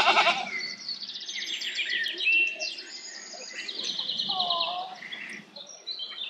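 Small songbirds singing, in fast trilled phrases with a few chirps, twice rising to a run of rapid notes. Right at the start, the tail of a loud goat bleat cuts off.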